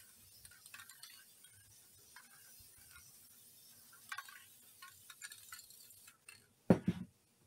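Aerosol can of clear coat spraying in short, faint hissing spurts, stopping about six seconds in, followed by a brief loud thump near the end.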